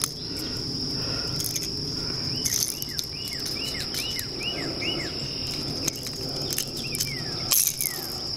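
Insects keep up a steady high-pitched drone, and in the middle a bird sings a run of about seven quick downward-slurred whistles, with two more near the end. A few sharp clicks come through as well.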